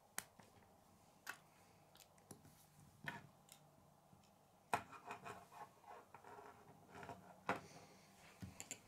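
K'nex plastic pieces clicking and rubbing as they are handled and fitted together. The clicks are faint and scattered, with a sharper one a little past halfway and another later on.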